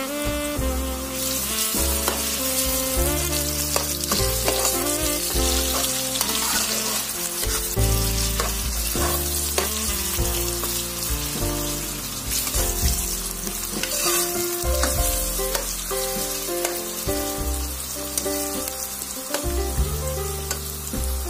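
Chopped meat and onions frying in hot oil in a large pot, a loud sizzling that swells about a second in, with a metal ladle stirring and clicking now and then. Background music with a melody of held notes plays under it.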